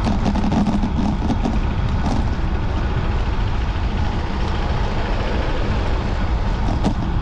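Wind buffeting a bike-mounted camera's microphone while riding, with bicycle tyres rolling on asphalt: a steady, loud low rumble.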